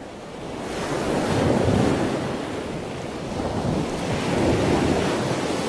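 Ocean surf with wind noise, swelling in over the first second and a half, then rolling on in slow surges.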